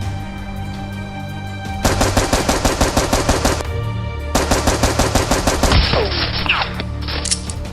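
Two bursts of rapid automatic gunfire over background music. The first lasts about two seconds and the second about a second and a half.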